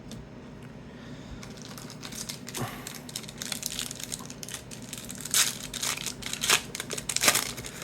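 Trading card pack wrapper being crinkled and torn open, a rapid run of crackles that gets louder in the second half.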